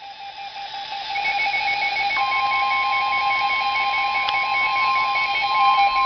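RadioShack WR-100 weather radio sounding a warning alert: a rapidly pulsing beep, joined about two seconds in by a steady high tone, the NOAA Weather Radio 1050 Hz warning alarm that signals a warning broadcast is coming.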